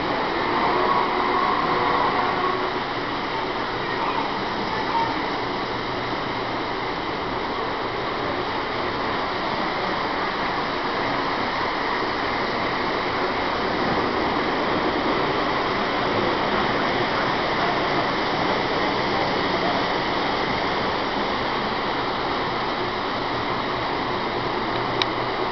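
Model trains running on three-rail tinplate track, a steady whir with faint voices in the background during the first few seconds.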